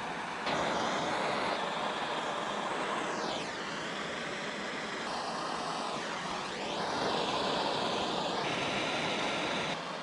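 Handheld gas torch burning with a steady hiss while heating copper pipe fittings for soldering. The hiss shifts in tone and level several times as the flame moves, and drops off sharply at the end.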